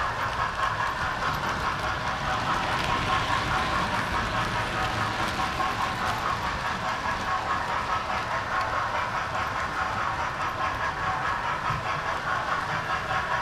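Model train running on its track, heard from a camera riding on the train: a steady rolling clatter of wheels on rails with a fast, even ripple.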